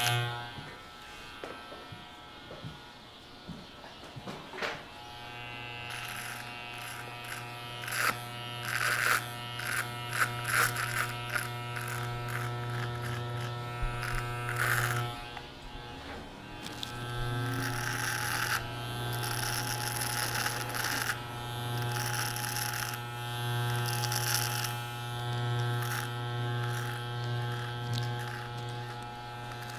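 Electric hair trimmer buzzing steadily as it is run over a man's face and neck, with short crackles as it cuts through the whiskers. It starts about five seconds in, stops for a moment around the middle, then runs again.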